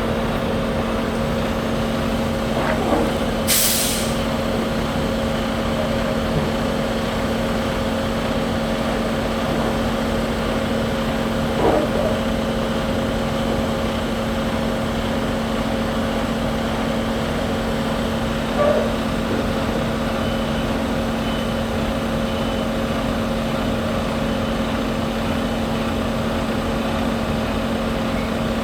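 Concrete mixer truck's diesel engine running steadily with a constant hum. A short hiss of air, like an air-brake release, comes about three and a half seconds in, and there are a few faint knocks.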